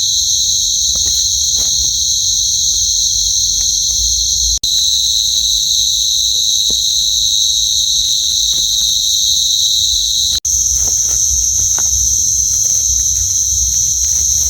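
A steady, loud chorus of night insects, crickets, shrilling in two high bands without a break except for two instant dropouts. A low rumble on the microphone and a few faint rustles sit beneath.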